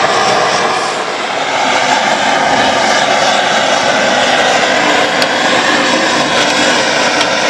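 Loud, steady roaring flame singeing the hair and hide off a cow head.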